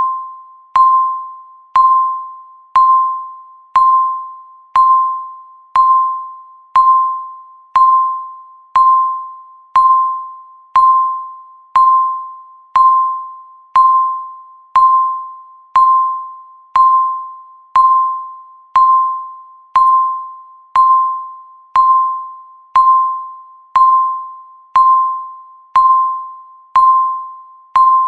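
Countdown timer beeps, one short electronic tone near 1 kHz each second, each sounding sharply and fading before the next, marking every second that passes.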